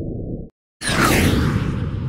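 An edited-in whoosh sound effect with a falling pitch, starting about a second in and fading slowly. Before it comes a muffled low rumble that cuts off abruptly about half a second in.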